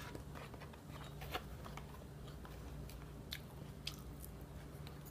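A person quietly chewing a mouthful of salad close to the microphone, with a few faint crunches and clicks scattered through it.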